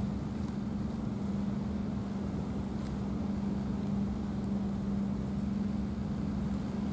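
A steady, unchanging low motor drone, like an engine running.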